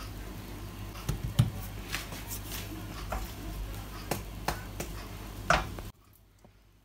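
Hands handling and laying cut rounds of puff pastry on a marble worktop, with a string of light taps and a couple of sharper knocks, over a steady low hum that cuts off suddenly near the end.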